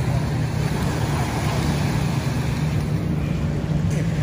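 Beach ambience: a steady low rumble under the wash of small waves lapping at the shore.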